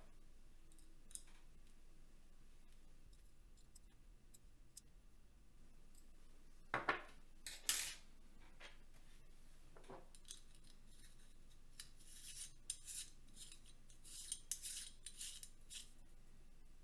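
Black 3D-printed plastic parts handled on a wooden table: two knocks as a part is set down about seven seconds in, then a run of light clicks and scrapes as the plastic parts are turned and fitted together near the end.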